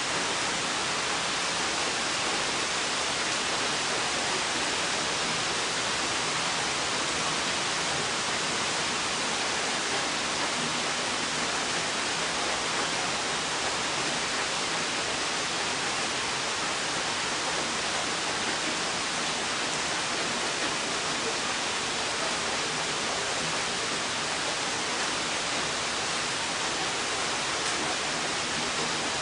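Rain falling steadily: an even hiss with no breaks.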